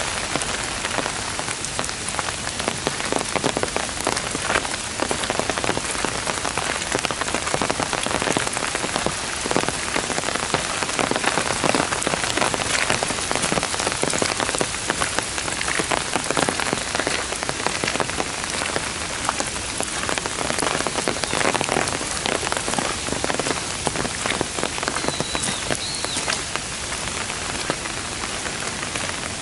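Heavy downpour falling on trees, undergrowth and a gravel path: a dense, steady hiss with many close drops striking sharply throughout.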